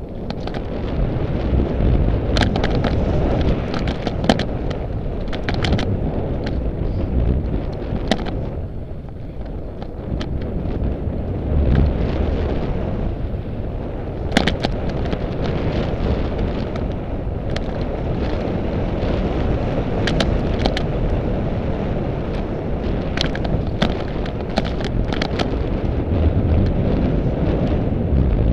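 Mountain bike riding fast down a dirt singletrack: tyres rumble over the ground while wind buffets the helmet camera's microphone, with irregular sharp clicks and knocks from the bike rattling over bumps.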